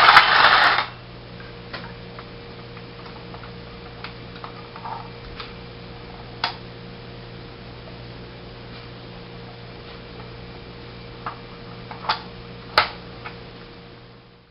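Battery-operated toy snorkel fire engine's motor and gears whirring for about the first second, then cutting off. After that only a faint steady hum, with scattered small clicks and taps as the toy is handled, the sharpest a couple of seconds before the end.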